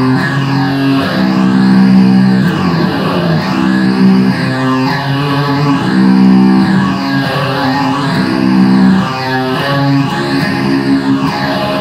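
Epiphone SG Special electric guitar played through a Line 6 Spider III amp: loud improvised heavy-metal chords, each held for about a second before the next, with a repeating sweeping effect.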